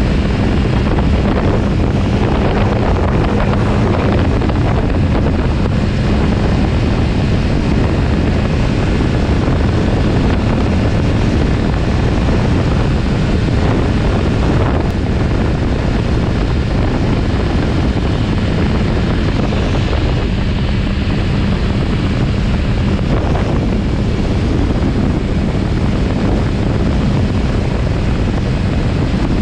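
Kawasaki Z900RS Cafe's inline-four engine running steadily at road speed, heavily overlaid by wind rush on the microphone. The engine's steady hum stands out more near the start and again about twenty seconds in.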